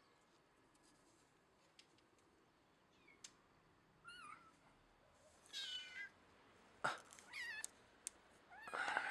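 A cat meowing: about four short, high, wavering meows after a quiet start, the longest near the middle and the loudest near the end, with a few sharp clicks between them.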